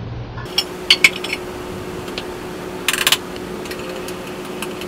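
Metal spoon clinking and scraping against a glass measuring cup while stirring cocoa powder into hot coffee: a few separate taps, then a quick run of clinks about three seconds in, then lighter ticks.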